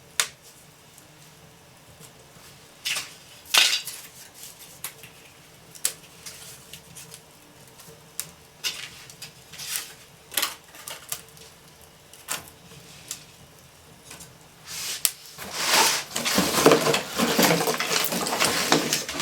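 A young fire of thin wooden crate slats crackles with scattered sharp pops and knocks. From about fifteen seconds in comes a long, dense clatter of dry crate slats being handled and stacked onto the fire.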